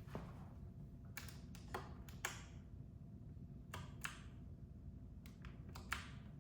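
Scattered light clicks and taps from handling a Razer BlackWidow V4 Pro mechanical keyboard, about nine spread over several seconds, some followed by a brief rustle.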